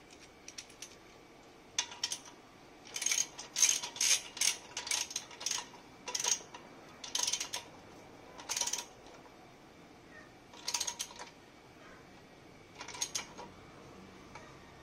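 Socket ratchet wrench clicking in short bursts of rapid clicks as the exhaust bracket bolt is turned, with the bursts crowded together over several seconds, then two more near the end.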